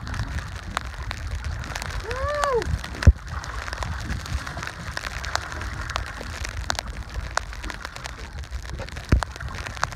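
Water splashing and crackling as a hooked sturgeon thrashes at the surface beside the boat, over a low rumble of wind on the microphone. A short cry rises and falls about two seconds in, and a sharp knock comes about three seconds in.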